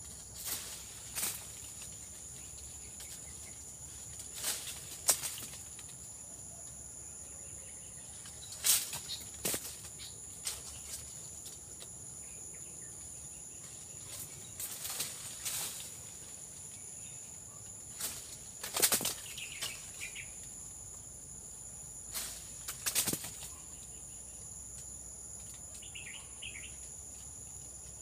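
Steady, high-pitched drone of a chorus of insects, held at two pitches. It is crossed by a dozen or so irregular sharp clicks and knocks, and a couple of short faint chirps.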